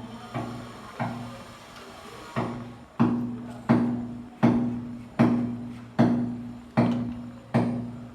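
Repeated knocking, about one knock every three-quarters of a second, each ringing briefly with a low hollow tone and getting louder about three seconds in: something being tapped or hammered during the cistern repair.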